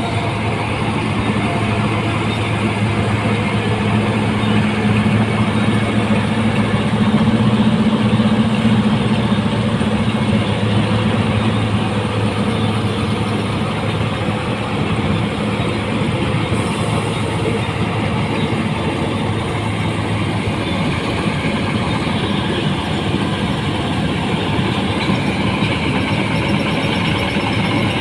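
Rice combine harvester running: a steady mechanical drone with a low hum that fades out about twenty seconds in.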